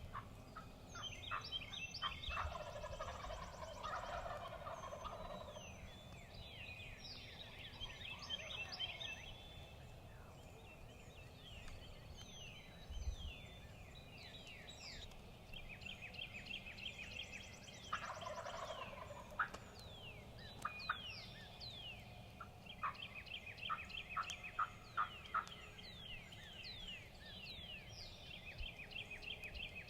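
A wild turkey gobbler gobbles twice, about two seconds in and again past the halfway mark, over a chorus of songbirds giving quick falling chirps and rapid trills.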